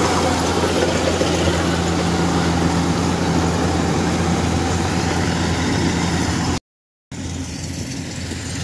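Rice combine harvester's engine running steadily under load with a low, even hum and threshing noise. About two-thirds through the sound cuts out for half a second, then a slightly quieter engine sound carries on.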